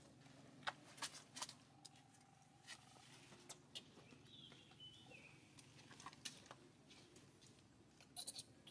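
A baby macaque gives a short, high squeak that falls in pitch, about halfway through. Scattered faint clicks and taps come before and after it, with a cluster near the end, over an otherwise near-silent background.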